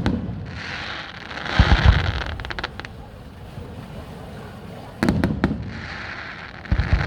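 Aerial fireworks: a shell goes up with a thump, a hiss follows, then loud bangs and crackling about two seconds in. The same happens again from about five seconds in.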